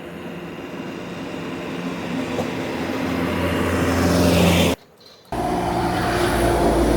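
A motor vehicle's engine running and growing steadily louder, cut off abruptly just under five seconds in, then running again.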